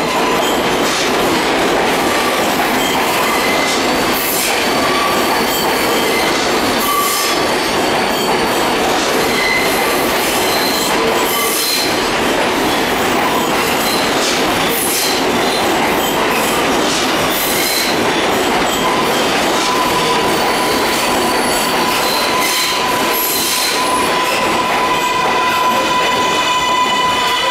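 R142A subway train pulling into an underground station and running along the platform: steady wheel-on-rail noise with short squeals and clicks over the rail joints. About two-thirds of the way in, a steady high whine sets in and holds, joined by several higher tones near the end.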